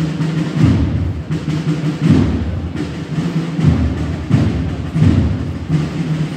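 A procession band playing a slow march: deep drum beats about every three quarters of a second over sustained low notes.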